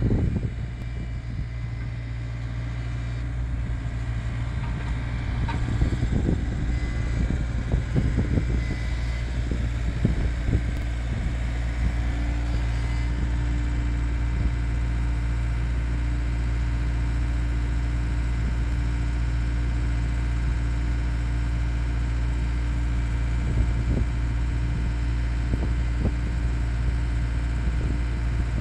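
Diesel engine of a Takeuchi TB175 compact excavator running steadily while it drives a hydraulic earth auger boring into soil. There are some irregular knocks in the first half, and a higher steady tone joins near the middle.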